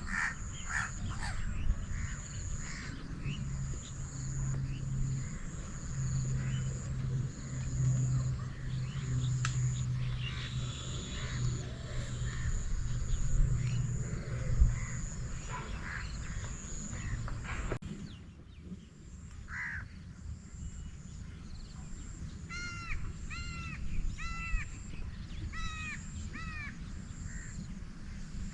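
Crows cawing now and then among other birds, with a quick run of repeated chirps about three-quarters of the way through. A steady low hum underlies the first half and stops abruptly at a change in the background, and a high pulsing buzz runs throughout.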